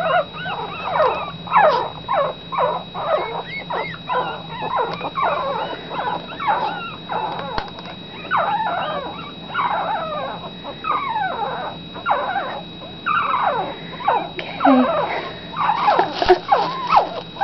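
A litter of newborn puppies, eyes just opening, whimpering and squeaking nonstop. The short, high calls slide up and down in pitch, a few a second, with several pups crying over one another.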